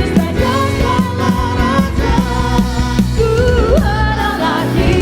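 Live worship band playing with singers: sung vocal lines over sustained chords, bass and a steady drum beat.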